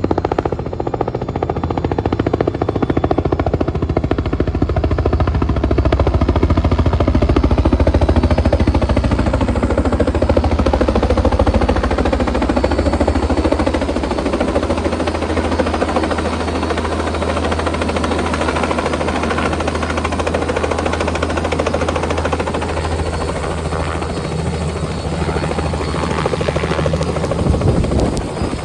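Helicopter running close by, its rotor blades chopping rapidly over a steady low throb, loud.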